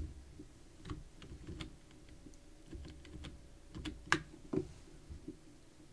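Computer keys pressed: scattered light clicks, with two louder clicks a little past four seconds and about four and a half seconds in.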